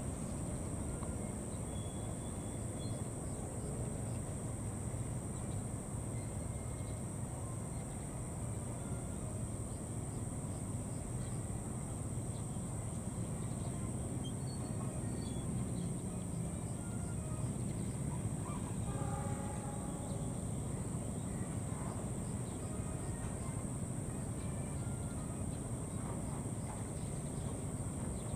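Steady high-pitched drone of insects over a low steady rumble, with a few short bird calls about two-thirds of the way in.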